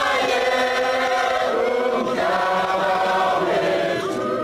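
A large crowd of mourners singing together as a choir, many voices holding long notes that shift every second or two.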